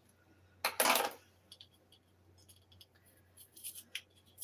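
A paper towel rustling loudly about a second in, then faint clicks and scratching as fingers, wrapped in the paper towel, work at the cap of an unopened plastic spice jar.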